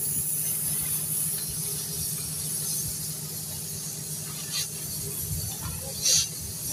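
Steady hiss of an oxy-fuel gas cutting torch cutting through a steel pile, over a steady low machine hum, with a short sharper burst of hiss about six seconds in.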